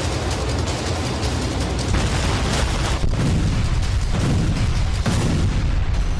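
Explosions and blasts: a dense, loud low rumble with several sudden hits.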